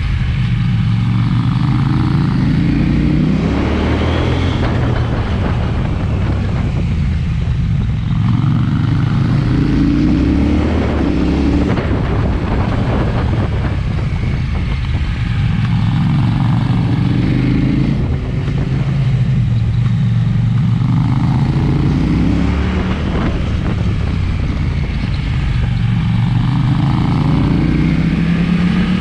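KTM 790 Duke's parallel-twin engine running through an SC-Project exhaust, its note rising under acceleration and falling back again several times over.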